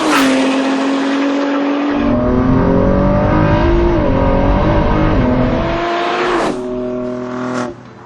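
Ford GT's 3.5-litre twin-turbo V6 running hard under acceleration on a race track, its engine note climbing in steps as it changes gear. The sound drops away suddenly near the end.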